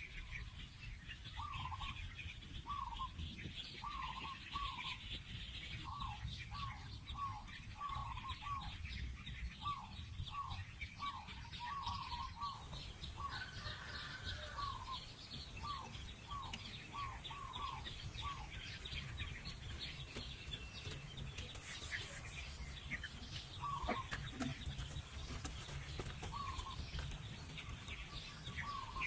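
Birds calling: a run of short, repeated notes, about two a second, through most of the first twenty seconds, with a few more near the end, over busy high-pitched chirping and a steady low rumble.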